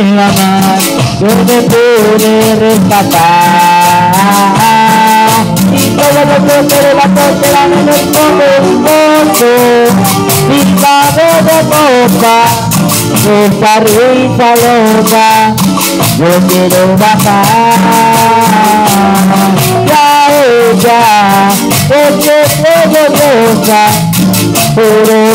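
Band music: a metal güira scraped in a steady, fast rhythm over a melody and a bass line.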